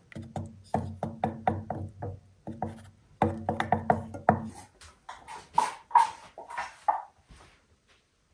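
Rapid knocking, about four knocks a second in several short runs, then a few slower, sharper knocks near the end.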